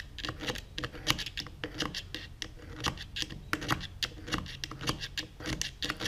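Screwdriver tip scraping and clicking against the gears of a Ford FMX automatic transmission's front pump as the gears are turned by hand, with irregular metal-on-metal scratches and ticks. The pump gears turn freely, so the pump is not seized.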